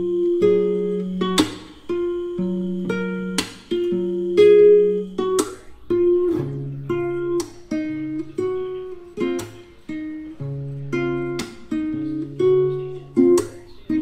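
Background music: strummed acoustic guitar chords, with sharp strokes about once a second.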